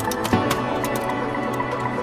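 Background music: a steady electronic track with soft percussion.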